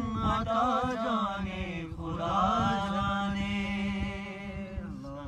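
A man singing a manqabat, an Urdu devotional song in praise of Imam Ali, in a drawn-out wavering melodic line. A long held note near the end fades out.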